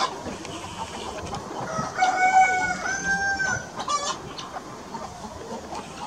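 Chickens clucking in a flock, with a rooster crowing once about two seconds in, one drawn-out call of about a second and a half.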